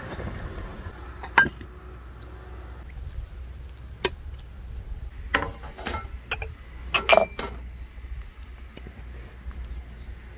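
A decorated metal tray set down on a wooden table and empty glass jars placed on it: a few scattered knocks and clinks, the loudest a quick group of ringing glass-on-metal clinks about seven seconds in.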